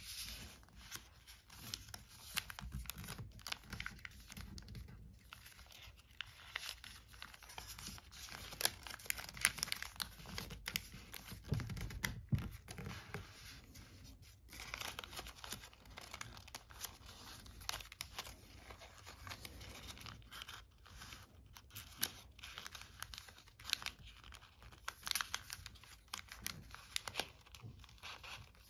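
Origami paper rustling and crinkling under the fingers as flaps are folded, tucked and pressed flat, in irregular short crackles and scrapes.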